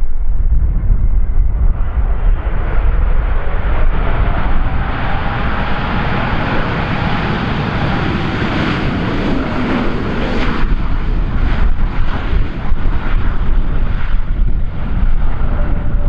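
Jet engines of a landing Korean Air airliner: the rush builds for several seconds, peaks about halfway through with a faint engine tone that rises and falls in pitch, then fades off. Heavy wind rumble on the microphone throughout.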